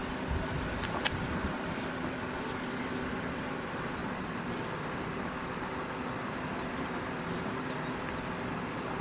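Steady outdoor background noise with a faint low hum, and a single sharp click about a second in.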